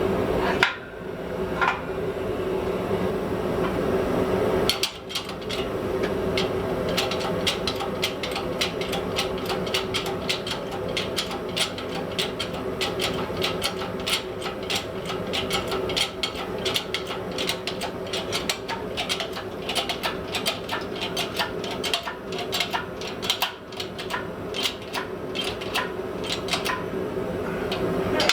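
Rapid hammer blows on hot steel, about two or three a second, as the blade of a hardy is drawn out. They start about five seconds in and run to near the end, over a steady hum.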